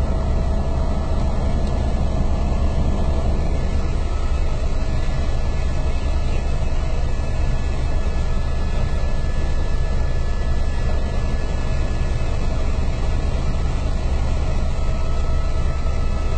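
Helicopter in flight heard from inside the cabin: loud, steady engine and rotor noise with a deep low drone and a faint steady whine above it.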